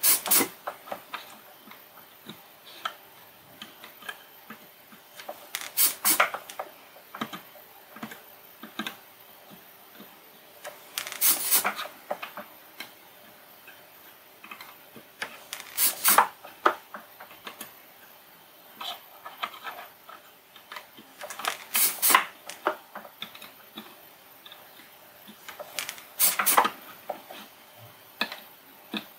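Small sharp clicks and taps in a cluster about every five seconds, from the soldering iron and the small snowflake LED circuit board being handled on the desk while the LED solder joints are touched up.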